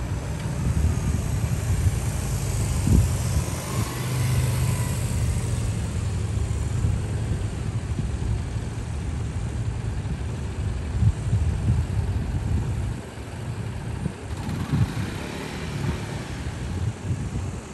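Small motorcycle engines running at low speed as training bikes ride past, under a steady low rumble. One bike passes about three to five seconds in, and another comes close near the end.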